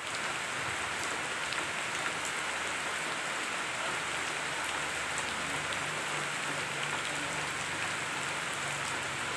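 Steady rain falling on the leaves of broadleaf trees: an even hiss with scattered single drops ticking.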